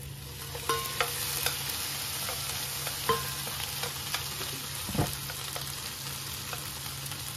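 Raw whole prawns frying in hot oil in a nonstick pan, sizzling steadily, with a few sharp clicks and knocks of the steel bowl and wooden chopsticks against the pan; the loudest knock comes about five seconds in.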